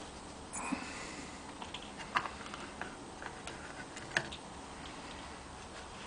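Light clicks and taps of hard plastic parts being handled as the clear bubble dome is lifted off a Masudaya Robot YM-3 model's head. There is a soft scrape early on and two sharper clicks, about two seconds in and about four seconds in.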